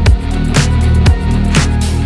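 Background music with a steady electronic beat: a kick drum about twice a second over a held bass line.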